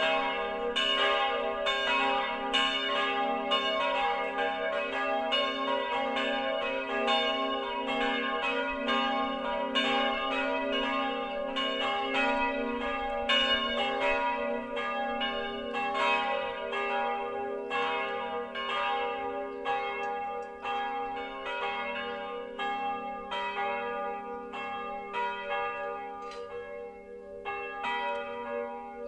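Church bells ringing together, a three-bell peal cast in 1950 by Karl Czudnochowsky and tuned g', b', c''. Their strikes overlap at about two a second, and the peal gradually gets quieter toward the end.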